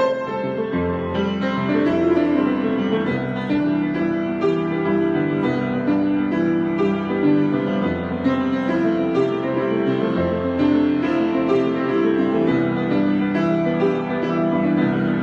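Piano improvisation: a steady flow of notes in the middle register over long-held bass notes.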